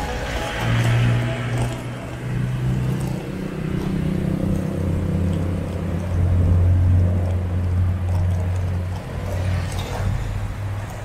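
Street traffic passing a moving bicycle, with a motor vehicle's engine giving a steady low drone that drops in pitch about four seconds in.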